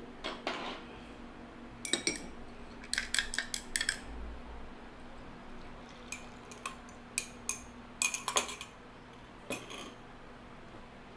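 Several short clusters of quick clinks and taps from a metal stirring rod working against a small cup over a plastic mixing bowl, scraping the leftover scent out of the cup with the soap mix.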